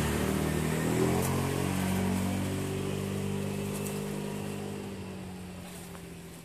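A motor vehicle's engine passing by and fading away. Its pitch sinks slowly as the sound dies down over about five seconds.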